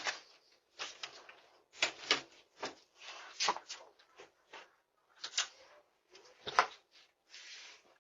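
A string of short, irregular knocks, clatters and rustles, about a dozen in all, picked up through a Ring doorbell camera's thin, tinny microphone.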